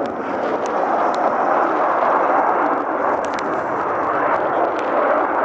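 Saab JAS 39 Gripen fighter jet's single afterburning turbofan engine, a loud steady jet noise as the aircraft flies its aerobatic display, with a few faint clicks over it.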